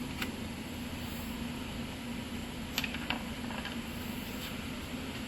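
Steady workshop hum, with a few light clicks as bolts and engine parts are handled while the bolts are started by hand into the engine's top section.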